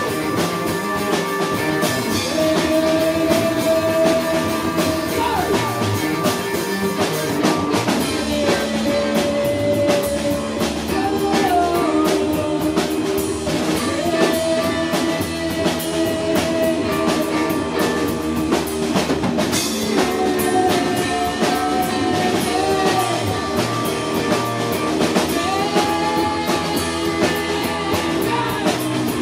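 Three-piece rock band playing live: two electric guitars, one of them a doubleneck, over a drum kit. Long held melody notes bend at their ends over the steady band.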